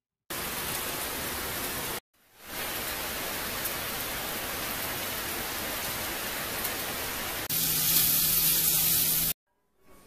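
Heavy rain pouring down, a steady even hiss with a short break about two seconds in. About seven and a half seconds in it turns louder and brighter, with a low steady hum beneath, for nearly two seconds, then cuts off.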